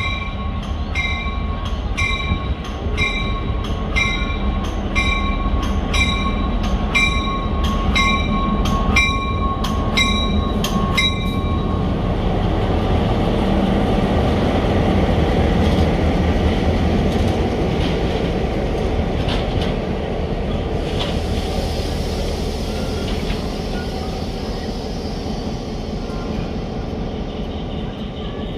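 Passenger train running on the rails, a steady low rumble and rattle throughout. For the first eleven seconds or so a bell rings about one and a half times a second, then cuts off suddenly.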